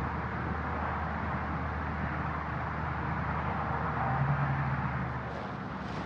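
Distant highway traffic: a steady low rumble of vehicles, with one vehicle's drone swelling briefly about four seconds in, under wind.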